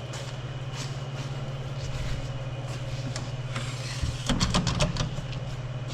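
Detroit Diesel 2-53, a two-cylinder two-stroke diesel, idling steadily with an even low hum, with a brief louder clattering patch about four seconds in.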